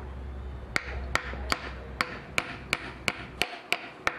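A hammer tapping on metal in an even run of about ten strikes, nearly three a second, starting about a second in. This is work on the upper steering-neck bushing of a 15 hp outboard motor.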